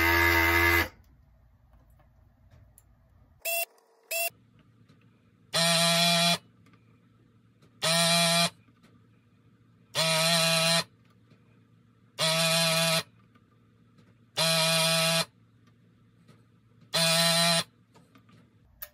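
Hakko desoldering gun's built-in vacuum pump buzzing in short bursts of under a second, about every two seconds, with two briefer blips between, as it sucks molten solder from the pins of a chip on a circuit board.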